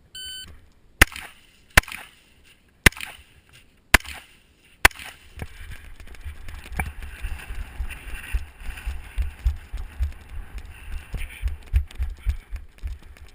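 A short electronic shot-timer beep, then five sharp AR-15 rifle shots through a Miculek muzzle brake, spaced about a second apart. After the shots come several seconds of uneven low thumping and rustling.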